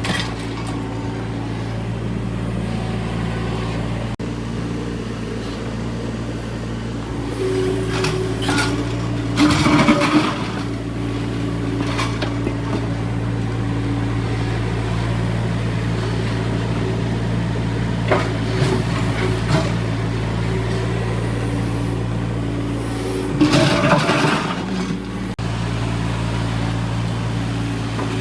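Excavator diesel engine running steadily, with a few short clanks and scrapes of the machine's working parts about a third of the way in, again a little later, and near the end.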